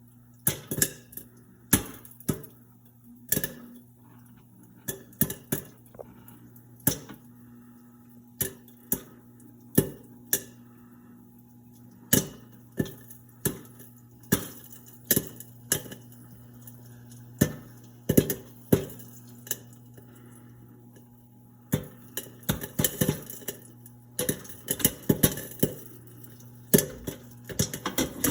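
Popcorn kernels popping in a kettle-style popcorn machine: irregular sharp pops over the steady hum of the stirring motor, the popping growing denser near the end.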